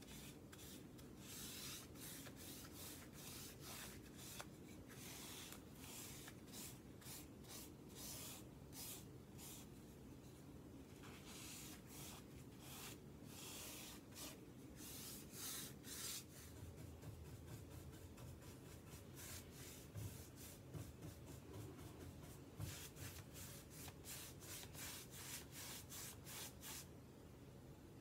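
A paintbrush stroking paint onto the wooden side of a dresser: faint, quick scratchy strokes, one after another.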